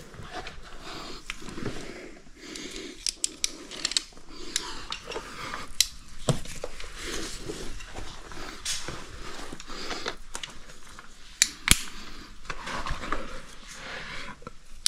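Metal caving gear clinking and tapping in irregular sharp clicks, with rope and boots scuffing on rock, as a caver works along a knotted traverse line. Soft breathing comes between the clicks.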